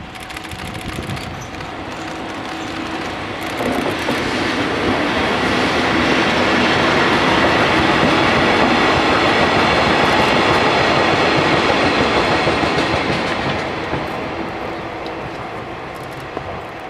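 Freight train passing at close range, an EF65 electric locomotive hauling the empty Shiki 611 oversize-freight wagon, wheels clattering over the rail joints. It builds about three seconds in, is loudest in the middle and fades away near the end.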